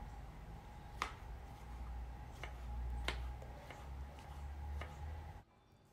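Chef's knife slicing a red pepper into strips on a wooden cutting board: several sharp, irregular taps of the blade striking the board, over a faint low hum. The sound drops away just before the end.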